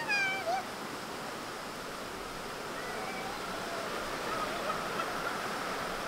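A single high animal call right at the start, sliding up and then falling away in under a second, over a steady rush of running water.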